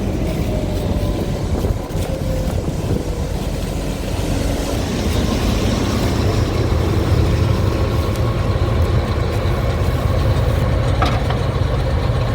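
Combine harvester's engine running steadily, getting louder about four seconds in, with a couple of brief clicks near the end.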